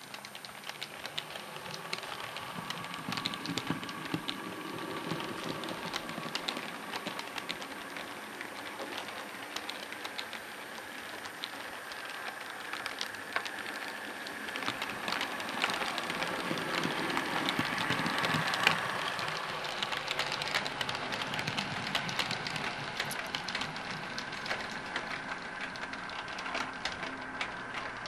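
OO gauge model multiple unit, a two-car Bachmann class 108 DMU in Network SouthEast livery, running on the layout: a dense patter of wheel clicks over rail joints and pointwork with a faint steady motor whine. It grows louder toward a peak about two-thirds of the way through, then eases.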